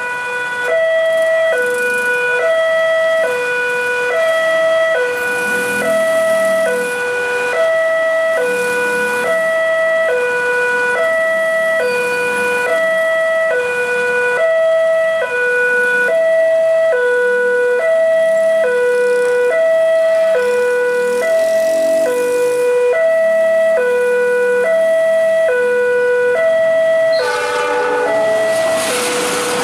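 Railway level-crossing warning alarm sounding its steady two-tone signal, high and low notes alternating about once a second, which warns that a train is coming. Near the end the rushing noise of the approaching train builds up under it.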